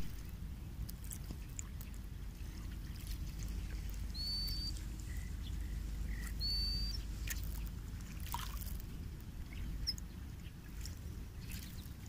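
Faint gurgle of small ripples lapping at a sandy river shore on calm water. A bird chirps twice briefly, a couple of seconds apart.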